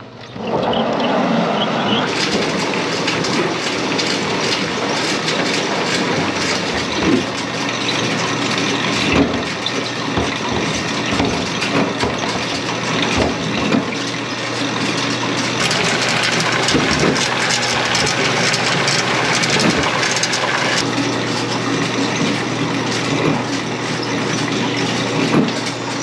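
Tomato washing machine running: a steady motor hum under a constant rush of spraying water, with tomatoes knocking against the machine and into plastic crates now and then.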